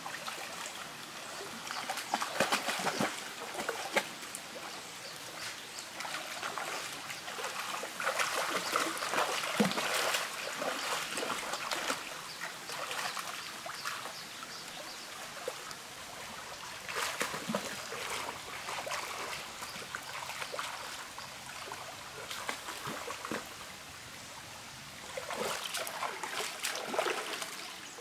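Shallow stream trickling over rocks, with splashing in bursts as a person bathes in the water.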